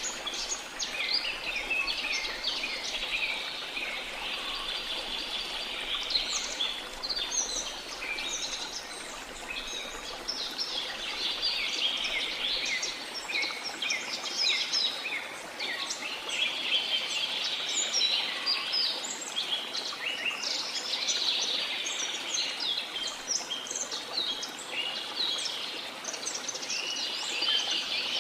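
A dense chorus of many birds chirping and trilling in quick, overlapping calls, over a steady background hiss.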